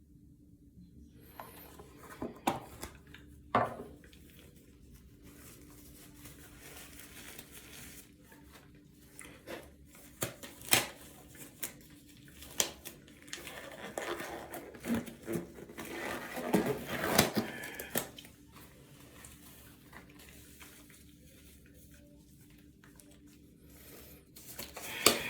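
Rustling and crinkling of things being handled, with scattered sharp clicks and taps.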